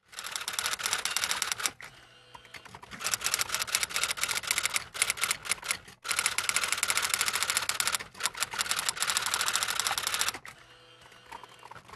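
Rapid, dense clicking in long runs, broken by short pauses about two seconds in and again near the end.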